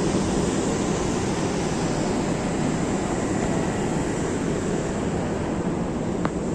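Steady low rumbling noise on the open deck of a bulk carrier, with a single brief tick near the end.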